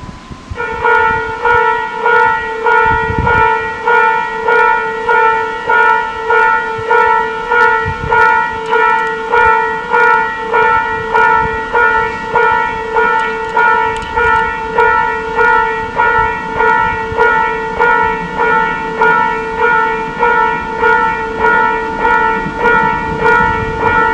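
Platform train-approach warning bell ringing in a steady repeated pattern, about once a second, signalling that a train is coming into the station. In the last several seconds the low rumble of the approaching electric train grows beneath it.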